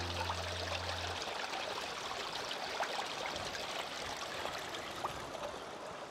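Running water of a small stream, a steady trickling and splashing rush with many small droplet ticks. Low sustained notes of background music stop about a second in.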